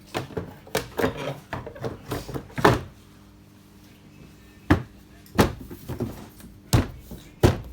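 Control panel of a Toshiba semi-automatic washing machine being closed up by hand after a timer replacement: a quick run of clicks and knocks, then, after a short pause, four sharp knocks spaced about a second apart as the panel is pressed and fitted into place.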